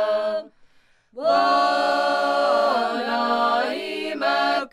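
Women's choir singing an old Seto leelo folk song a cappella in several parts. A phrase ends, there is a short pause for breath, then the voices come in together about a second in with long held notes, one voice above the rest.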